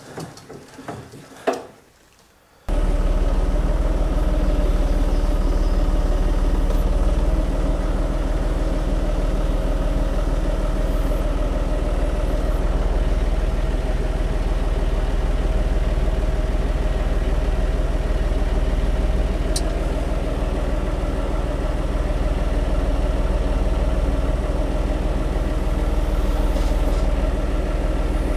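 A few light knocks, then a tractor engine starts to be heard abruptly and runs steadily at an even speed.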